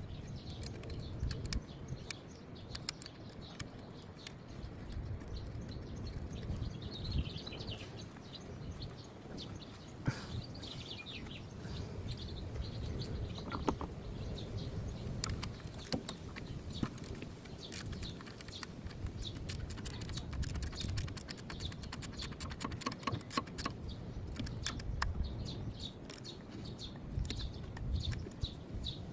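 Hand tools and metal parts clicking and knocking while an engine-bay bracket is refitted, with a run of quick clicks in the second half. Birds chirp briefly in the background.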